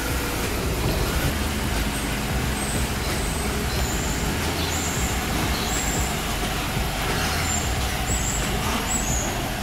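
BMW 1 Series with a freshly rebuilt engine idling steadily as the car creeps forward, a low even engine hum. A few short, high chirps come and go over it.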